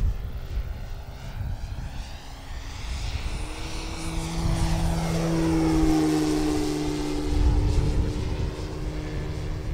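Brushless outrunner electric motor (Leopard LC8072) and 24-inch APC propeller of a giant-scale RC Robin DR 400 flying past with a steady propeller hum. It swells to its loudest about halfway through as the model passes close, then dips slightly in pitch as it moves away.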